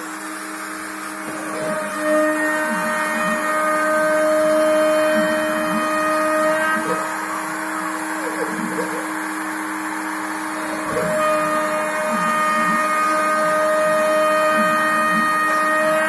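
DIY CNC router cutting: the spindle motor runs with a steady whine while the axis drives add short rising and falling whines as the machine moves. The sound gets louder about two seconds in and again near eleven seconds.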